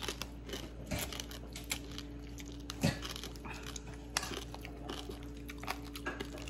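Close-up eating sounds: a man sucking in and chewing thin noodles, with scattered sharp clicks and wet mouth noises, over a steady low hum.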